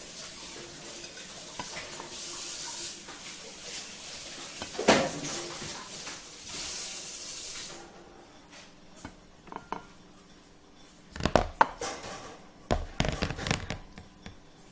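Metal spoon clinking and scraping on a plate while grape leaves are filled with rice and rolled by hand. There is a sharp clink about five seconds in and a cluster of louder knocks and clatters near the end, over a steady hiss that stops about eight seconds in.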